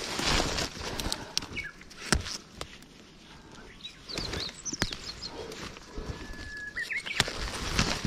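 Rustling through undergrowth with a few sharp snaps and clicks, while small birds chirp and sing; one bird holds a steady whistled note for about a second near the end.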